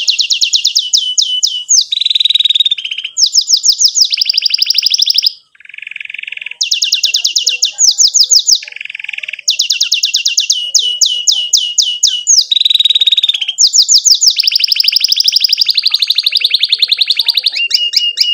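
Domestic canary singing a long song of rapid trilled phrases. Each phrase is a fast run of repeated down-sweeping chirps, and the phrases follow one another with a brief break about five seconds in.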